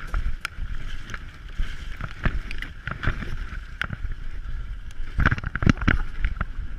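Mountain bike rolling down a rough trail: tyre rumble and wind buffeting on the microphone, with frequent sharp knocks and rattles as the bike goes over roots and rocks, several close together near the end.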